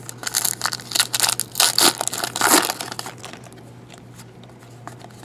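Crinkling of plastic trading-card pack wrappers being handled and torn, in a run of loud rustles over the first three seconds, then quieter handling, over a low steady hum.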